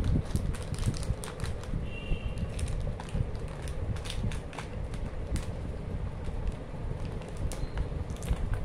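Wrapped chocolate bars being picked up and set into the compartments of a plastic tray: scattered crinkles of foil-and-plastic wrappers and light clicks against the tray, over a steady low rumble.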